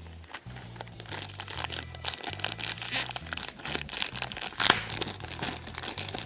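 Plastic toy packaging crinkling and rustling as small toy pieces are handled and unwrapped, with one sharper crackle about two-thirds of the way through.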